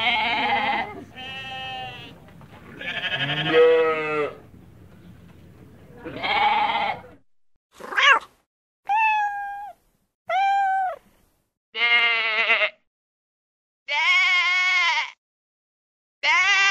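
A goat bleating four times, followed by four short sliding animal calls and then three longer, wavering sheep bleats.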